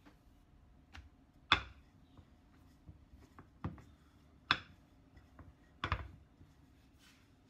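Wooden rolling pin knocking on a plastic cutting board while bread dough is rolled out: about five sharp knocks at uneven intervals, with faint rubbing between them.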